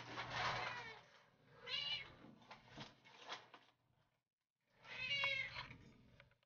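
Domestic cat meowing several times in a row, separate calls with gliding pitch and short pauses between them, the loudest at the start and about five seconds in.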